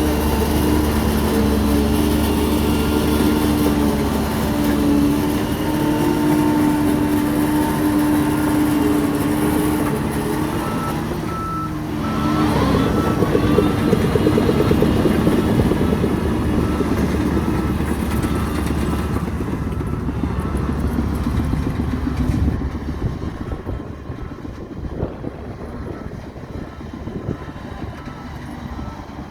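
Radio-controlled model dump trucks and bulldozer running, with steady engine-like tones. It grows louder and rougher about twelve seconds in, then fades near the end.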